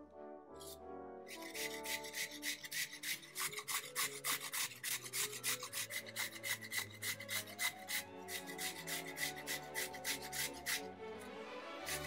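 A vegetable being grated on a metal grater: rhythmic rasping strokes at about four a second, pausing briefly near the end.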